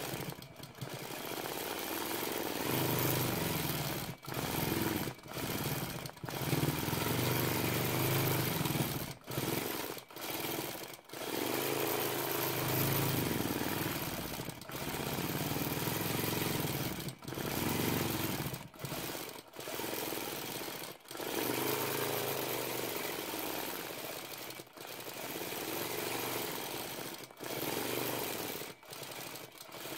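A1 longarm quilting machine stitching, its motor and needle running with a pitch that rises and falls as the head is moved, broken by brief stops every few seconds.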